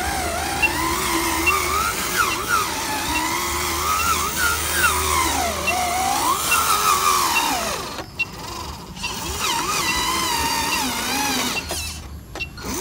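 Motor and gearbox of a homemade radio-controlled dump truck loaded with soil whining as it drives, the pitch sliding up and down with the throttle. The sound drops away briefly about eight seconds in and again near the end.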